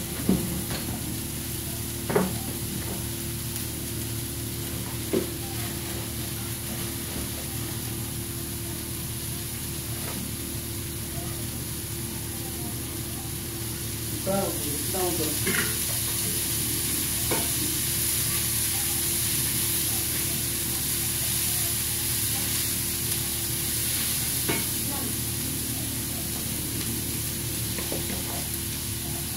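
Chopped vegetables sizzling steadily on a hot flat iron griddle plate, with a few short clicks. About halfway through, water is poured onto the plate and the sizzle turns louder and hissier as it steams.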